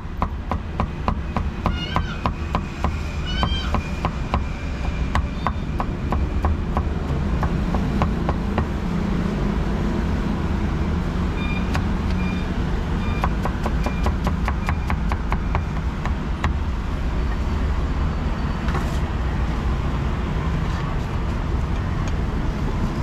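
Cleaver chopping meat on a wooden block: a fast, even run of knocks, about four a second, for the first several seconds, then slower irregular chops. Two short rising-and-falling squeals come in the first few seconds, over a steady low rumble.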